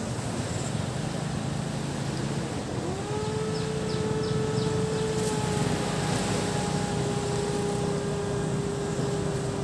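Surf washing on the beach under a low motor rumble. About three seconds in, a steady droning engine tone slides up in pitch and then holds, with a few short high ticks soon after.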